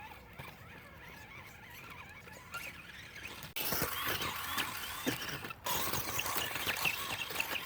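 An RC truck's 27-turn brushed electric motor and drivetrain whining and squealing as the throttle is worked, the pitch rising and falling in short spurts, over the scrabble of driving. The sound changes abruptly twice, about three and a half and five and a half seconds in.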